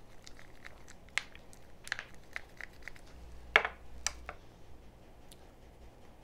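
Chopsticks tapping and clicking against a small glass cup as mayonnaise-and-ketchup dip is stirred: a scatter of light clicks, with one louder knock about three and a half seconds in.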